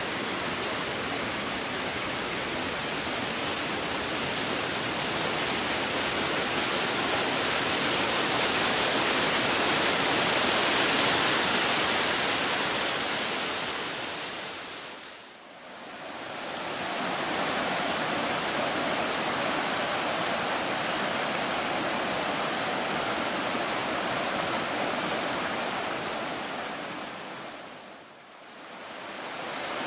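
Steady rush of a mountain stream and its waterfalls, fading out and back in about halfway through and again near the end.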